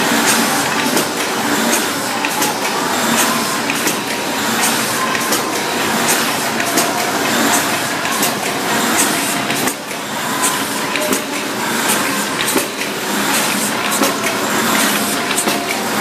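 Automatic square-bottom paper bag making machine running at production speed: a steady mechanical clatter with many quick, sharp clicks from its rollers and folding parts.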